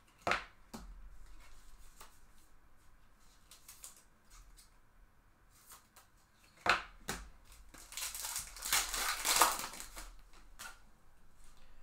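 Foil wrapper of a Bowman Baseball trading-card pack crinkling and tearing open, loudest for a couple of seconds near the end. A few sharp taps from handling come in the first second and again past halfway.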